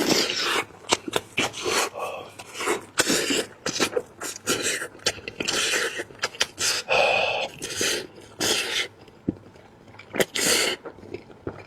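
Close-miked eating sounds from braised lamb head: chewing and sucking at the meat, with breathy mouth noises, in a run of irregular bursts and wet clicks.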